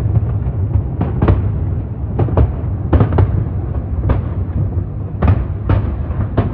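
Fireworks shells bursting in an irregular series of sharp booms, several coming in quick pairs, over a continuous low rumble.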